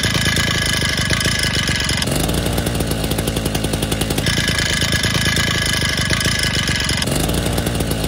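Two-stroke Stihl chainsaw engine running. In the first part it has a pinging piston slap from a worn piston with a lot of play between skirt and cylinder wall. Partway through, it switches to the same engine with a new OEM top end, running without the pinging.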